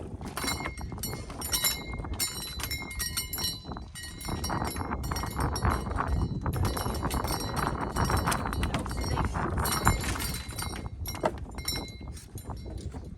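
Bell-like metallic clinking, many quick irregular strikes ringing at the same few pitches, over a steady low rumble.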